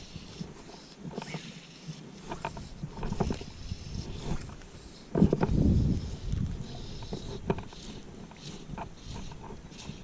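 Wind buffeting the microphone, with a strong gust about five seconds in, and scattered rustles and clicks of fly line being stripped and handled.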